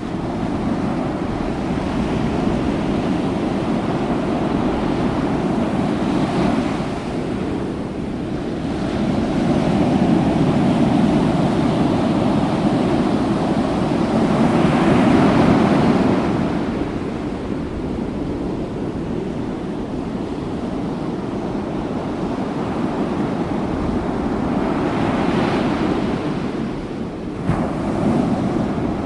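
Ocean waves: a continuous rush of surf that swells and ebbs in several surges, the biggest building about ten to sixteen seconds in.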